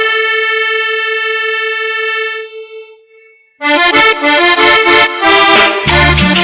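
Cumbia track with accordion, played over a sonidero sound system. The accordion holds one long wavering note that fades out about three seconds in. After a brief pause it comes back in with a quick rhythmic riff, and bass and drums join near the end.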